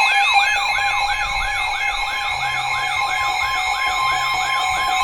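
Emergency Alert System attention tone announcing a severe thunderstorm warning: a siren-like whoop rising quickly about four times a second over a steady two-note tone.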